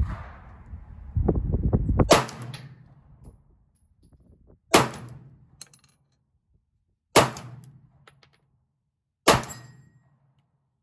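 Four shots from a Glock 43x 9mm subcompact pistol, spaced about two and a half seconds apart, each a sharp crack followed by a short echo. A low rumble on the microphone covers the first two seconds, up to the first shot.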